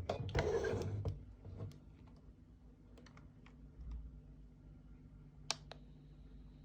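Handling noises from a FrSky Taranis QX7 radio transmitter and its battery: a scraping rustle near the start, then scattered small plastic clicks, with a sharper click about five and a half seconds in.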